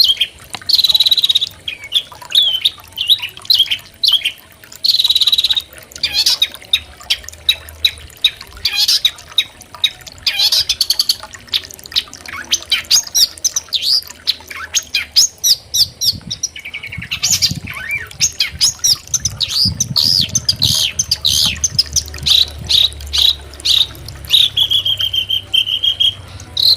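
Long-tailed shrike (cendet) singing a fast, varied song of quick chirps broken by harsh buzzy phrases, with a longer steady buzzy trill near the end.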